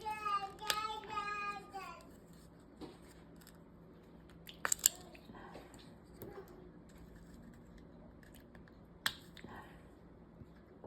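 A child singing for about the first two seconds, then quiet handling of small plastic parts with a few sharp clicks, the loudest a quick cluster a little before five seconds in and a single one about nine seconds in.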